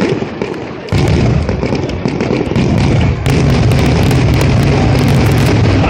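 Fireworks finale barrage: aerial shells bursting in rapid, overlapping succession with constant booms and crackle, jumping sharply louder about a second in.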